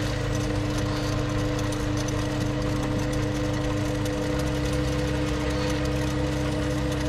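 Sieg C2 mini lathe running with a four-jaw self-centering chuck spinning, a steady machine hum made of several constant tones. The lowest part of the hum shifts slightly about four seconds in.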